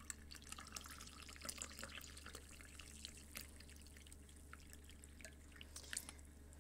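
Freshly steeped tea poured from a white teapot into an enamel mug: a faint trickle with small splashes, thinning to a few drips over the last seconds.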